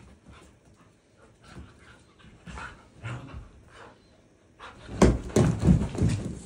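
Two huskies play-fighting: soft panting and small dog noises, then about five seconds in a loud burst of scuffling and thumps.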